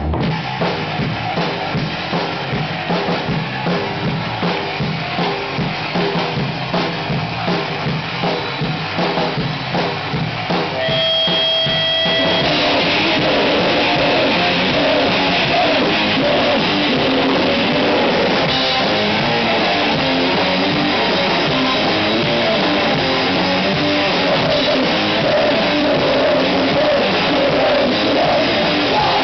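A rock band rehearsing: distorted electric guitar through a Mesa/Boogie amp, bass guitar and drum kit. For the first ten seconds or so it plays a punchy stop-start rhythm; after a short held note, the full band plays a dense, continuous loud passage.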